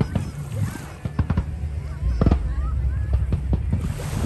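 A fireworks display with repeated sharp bangs, the loudest about two seconds in, mixed with short, high whoops and shouts from onlookers.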